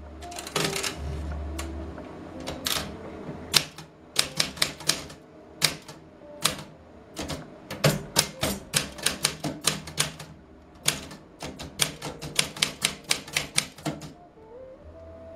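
Portable manual typewriter being typed on: sharp key strikes, scattered at first, then in quick clattering runs. Near the end the carriage is returned.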